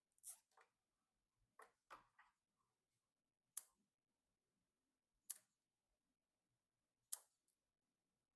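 A string of short, sharp clicks and taps, about eight of them at irregular intervals of one to two seconds, from hard parts being handled during a PC build.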